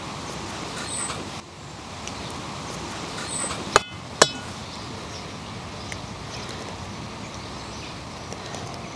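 An egg knocked twice against the rim of an enamel bowl to crack it, two sharp clinks with a brief ring about four seconds in, over a steady outdoor background hiss.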